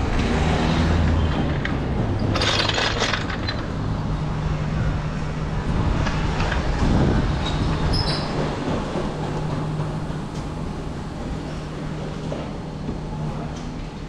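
Workshop noise: a machine hums steadily, with a short burst of hiss about two and a half seconds in and scattered metallic clinks.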